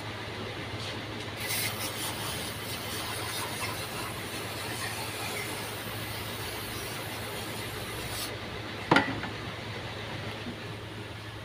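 AB 80 aerosol spray can hissing steadily for about seven seconds as it sprays onto the engine block, then cutting off suddenly. A single sharp knock follows about a second later.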